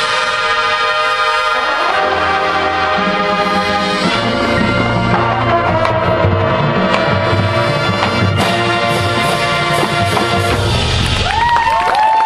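High school marching band playing the closing section of its show: full brass chords over a low drum and bass pulse. Near the end, cheers and whoops from the crowd begin to rise over the band.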